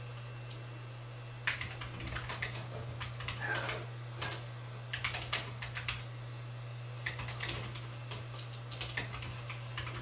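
Young great spotted woodpecker pecking at a peanut cake in a wire hanging feeder: irregular sharp taps and clicks, some in quick clusters, over a steady low hum.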